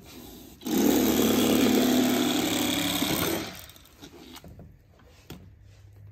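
Electric Bubba Blade fillet knife running steadily for about three seconds, starting about a second in and then stopping.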